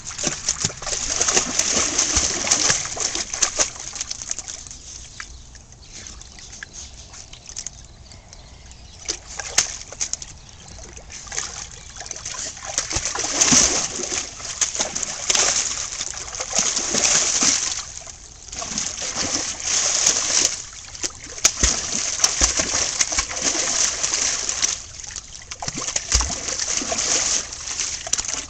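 A dog splashing and wading in a garden pond, the water sloshing in irregular bouts. There is a quieter stretch of several seconds near the start, then heavier splashing through most of the rest.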